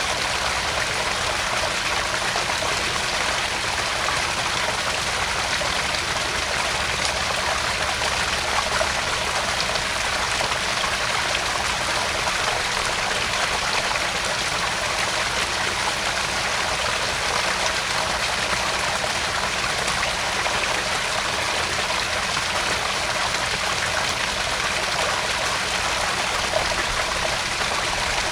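Small garden-pond waterfall: water splashing and trickling steadily over rocks into the pond, an even, unbroken wash of sound.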